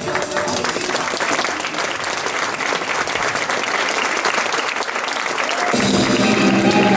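Audience applauding as the music cuts off; about six seconds in, music starts up again.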